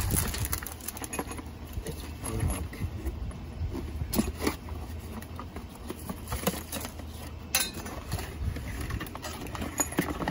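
Rustling and crinkling of plastic trash bags and cardboard packaging being rummaged through and handled in a dumpster, with scattered light clicks and knocks. A steady low hum runs underneath.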